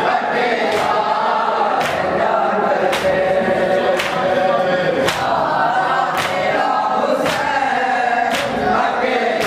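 Men chanting a noha in unison through a microphone, with sharp chest-beats (matam) keeping the beat about once a second.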